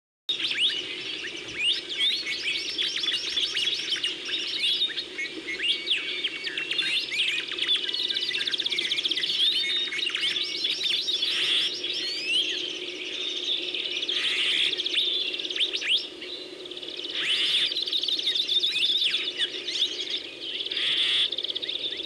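A dense chorus of native Hawaiian forest birds: many overlapping chirps, trills and whistles, with a low steady hum beneath.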